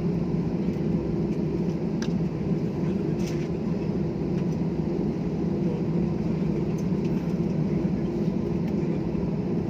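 Steady low rumble inside an airliner's cabin, the noise of the engines and air system, with a few faint clicks.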